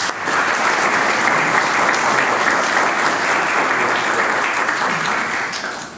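Audience applauding: a room of people clapping steadily, easing off slightly near the end.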